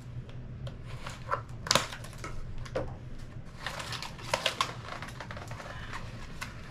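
Cardboard and plastic packaging being cut and pulled open by hand: irregular clicks and snaps, with a cluster of crinkling rustles about four seconds in, over a low steady hum.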